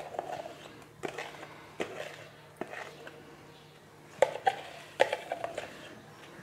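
A plastic container knocking and clicking against a glass bowl as frozen ice-cream base is tipped out of it: a series of short, irregular knocks.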